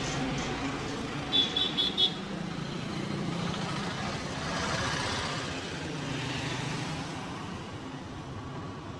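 Street traffic: vehicle engines running with a steady hum that swells about five seconds in as traffic passes. About a second and a half in, four quick high-pitched beeps, like a horn, are the loudest sounds.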